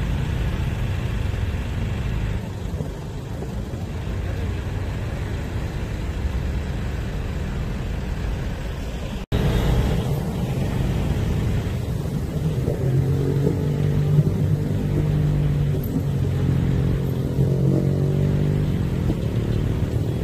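A motor engine running steadily under a low rumble. The sound drops out for an instant about nine seconds in, and from about twelve seconds a steadier engine hum stands out above the rumble for several seconds.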